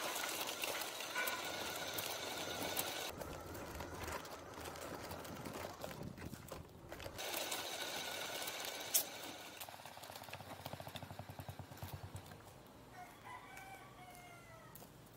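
A rooster crows near the end. Before that there is an uneven hiss of outdoor noise with scattered clicks, loudest in the first few seconds.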